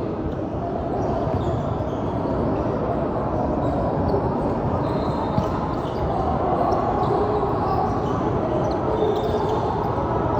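Basketball game sounds in a large gym: a ball bouncing on the hardwood court over a steady echoing background of many voices and court noise.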